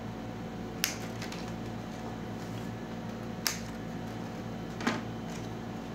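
Scissors snipping a black insulating sheet: three short, sharp clicks about one, three and a half and five seconds in, over a steady hum.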